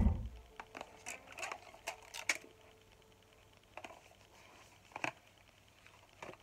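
A dull thump at the start, then scattered light taps and clicks of a small cardboard gift box being handled and opened by hand.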